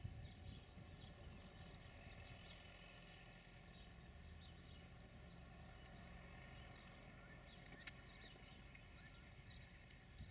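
Faint birdsong, many short chirps scattered throughout, over a low steady rumble, with one sharp click near the end.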